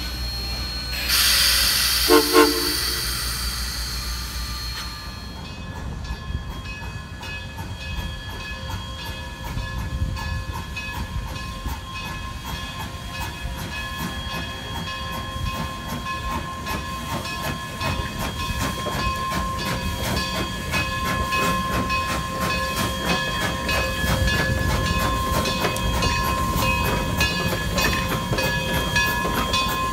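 Durango & Silverton narrow-gauge steam train in the yard: a loud hiss for about four seconds, with two sharp clanks about two seconds in. Then a long steady run of rapid clanking beats from the steam locomotive, with several high steady ringing tones over it.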